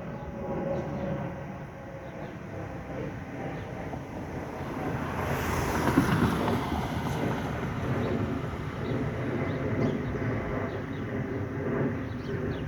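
Federal Signal 2001 rotating electromechanical siren sounding the steady Alert tone at a distance, heard as several faint held tones under outdoor traffic noise. A louder burst of noise swells and fades about five to seven seconds in.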